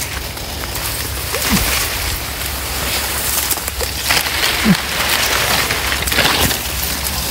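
Tall grass and weeds rustling and brushing close to the microphone as someone pushes through thick vegetation on foot. Two short falling tones sound in the background, about one and a half seconds in and again near the five-second mark.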